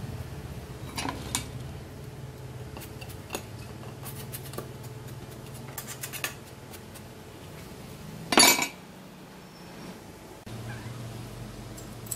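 Light metal clinks and scrapes as fibre packing is pushed down with a metal bar around a perforated steel core inside a stainless motorcycle muffler shell, with one louder scraping clatter about eight seconds in. A steady low hum runs underneath and drops out for about two seconds after that clatter.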